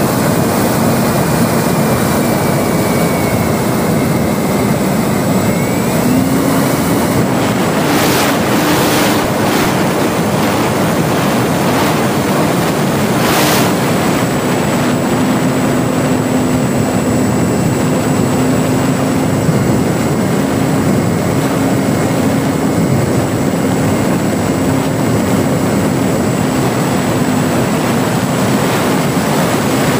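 Electric motor and propeller of a ParkZone Spitfire radio-control model plane in flight, heard from its onboard camera with heavy wind rush over the microphone. It is a steady motor hum whose pitch steps up about six seconds in and shifts again around fourteen seconds, with a few brief gusty bursts in between.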